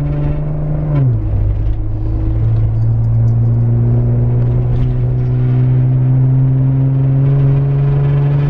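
Jeep Wrangler JKU engine and Magnaflow exhaust heard from inside the cabin while driving: a steady drone that drops in pitch about a second in as it shifts up, then climbs slowly as the Jeep gathers speed.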